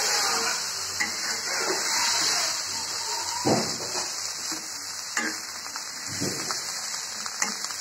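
Cubed potatoes and gourd sizzling in hot oil in a wok as a metal spatula stirs them, with a handful of sharp scrapes and knocks of the spatula against the pan spread through.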